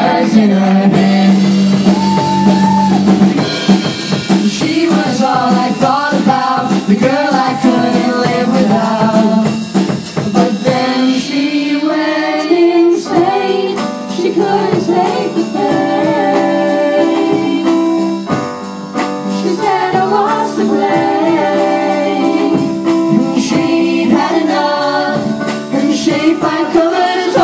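Live band performing a song: several singers at microphones backed by a drum kit, with a steady beat.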